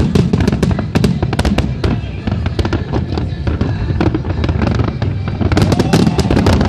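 Fireworks display in full barrage: many overlapping bangs and crackles a second over a steady low rumble, growing denser near the end.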